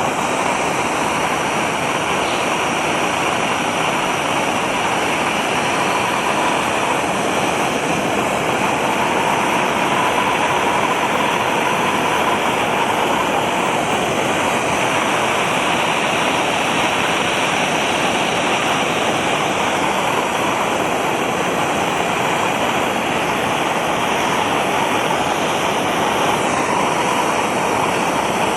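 A heating tool makes a steady rushing roar as it warms the aluminium rocker cover to free the old breather fitting. The roar cuts off abruptly at the very end.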